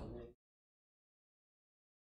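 A brief full-range sound cuts off abruptly about a third of a second in, leaving dead silence.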